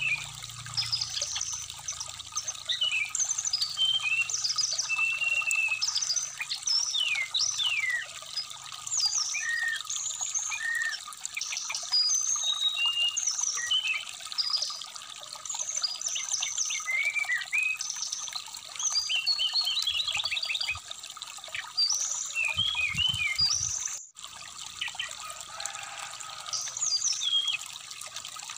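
Brown-chested jungle flycatcher singing a fast, varied run of short whistles and chirps over a steadily trickling stream.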